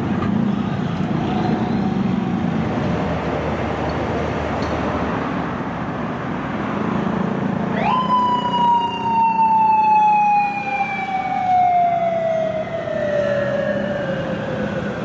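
Street traffic noise, then about eight seconds in a police motorcycle siren sweeps quickly up and falls slowly in one long wail, the white police motorcycle setting off with its siren on to stop a traffic violator.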